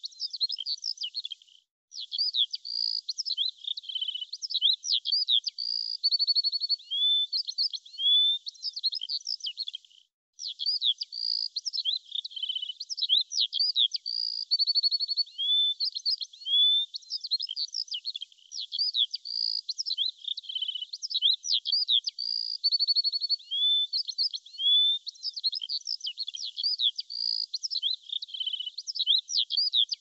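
A songbird singing a fast, varied high-pitched song of rising whistles, chirps and quick trills. The same run of phrases comes round again about every eight seconds. The song cuts out for a split second twice.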